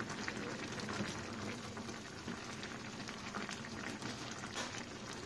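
Coconut-milk stew boiling in a metal pot, a steady bubbling of many small pops, as a plastic spatula stirs through the chunks of taro and vegetables.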